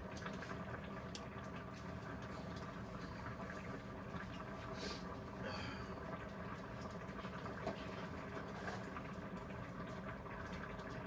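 Pot of beef stew simmering on the stove: a steady low bubbling hiss with a few faint clicks.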